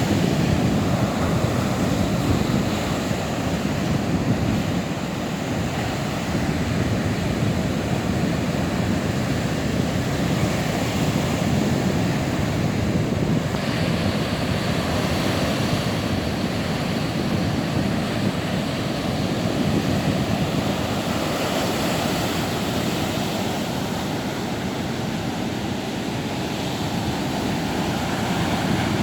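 Heavy sea surf breaking against coastal rocks: a continuous rushing and crashing that swells and eases slowly as the waves come in.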